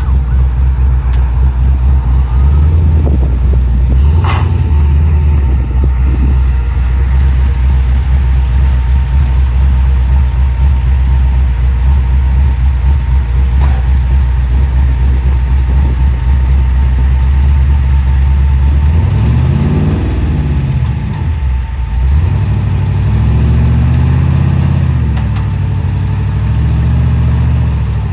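Car engine with a deep, loud exhaust idling, revved up and back down about twenty seconds in and again a few seconds later.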